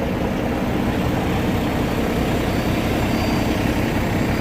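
Heavy diesel semi-truck engine running steadily under load as it tows a stuck truck up off the ice.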